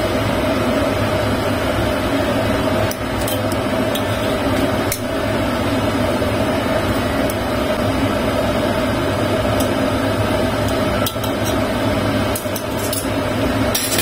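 A steady mechanical hum of kitchen running noise, with several light clicks of metal tongs against a wok as whole pigeons are turned in simmering braising liquid.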